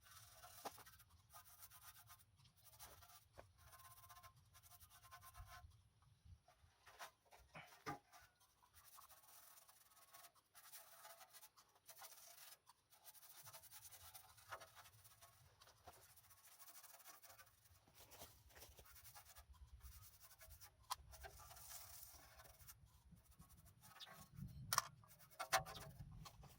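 Faint, irregular scratching and rubbing with scattered light clicks and taps.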